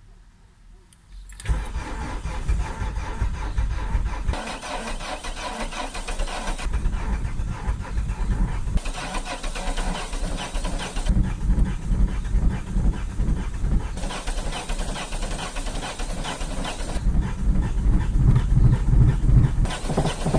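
Opel Zafira engine cold-starting at −11 °C: after a quiet second and a half it suddenly catches and runs on at idle, heard close to the tailpipe. It starts without trouble despite the cold.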